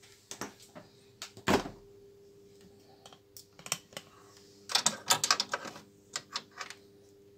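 Handling clicks and knocks from placing a thermometer's sensor cable inside a freezer compartment: a single thump about one and a half seconds in, scattered clicks, and a quick run of rattling clicks around five seconds in. A faint steady hum runs underneath.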